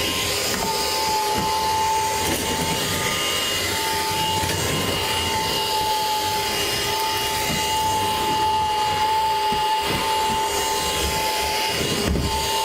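Craftsman V20 cordless stick vacuum (CMCVS001D1) running on a hard floor with its beater bar off: a steady motor whine over rushing suction air.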